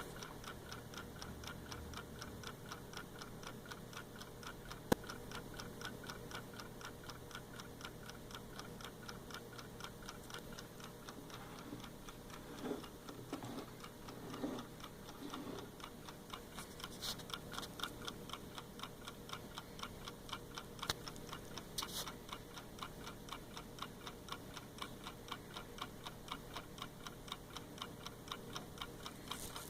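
Wind-up mechanical clock movement of an inexpensive AcuRite clock ticking in quick, even beats, running on spring power alone. A single sharp click comes about five seconds in, and a few soft bumps and clicks follow in the middle.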